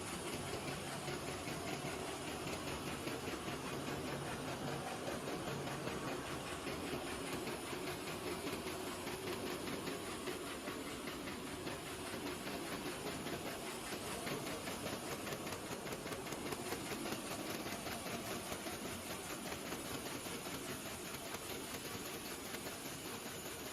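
Paper bag making machine running, a steady noisy mechanical hiss that holds even throughout.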